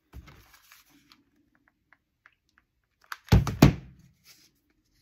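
Quiet handling noises from gluing and folding craft foam, then a little past three seconds in a quick run of two or three loud knocks, as of something hard set down or bumped.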